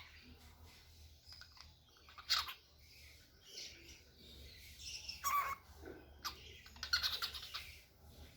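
A pet cockatiel making a few short, separate chirps and squawks: one about two seconds in, a louder call that falls in pitch past the middle, and a scratchy run of chatter near the end.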